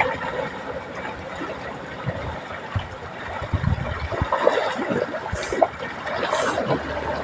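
Water splashing and trickling unevenly, with a few dull low bumps.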